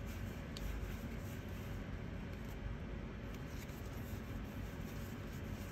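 Faint handling of Pokémon trading cards: card stock sliding and rubbing as a fanned stack is shifted between the fingers, with an odd light click, over steady room hiss.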